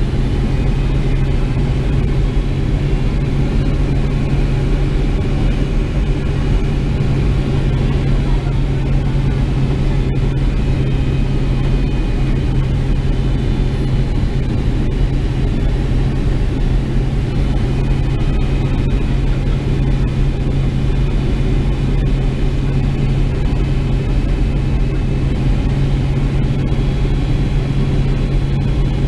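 Boeing 767 cabin noise on final approach, heard at a window seat over the wing: a steady low drone of the jet engines and rushing air, with faint high whining tones above it.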